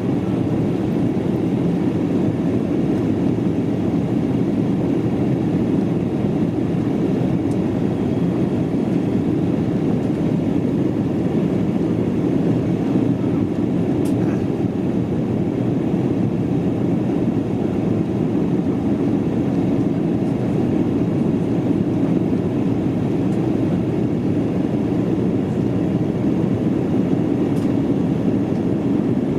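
Steady in-flight cabin noise inside an Embraer ERJ-195 jet airliner: an even, low rush from its turbofan engines and the air streaming past the fuselage, with a few faint ticks.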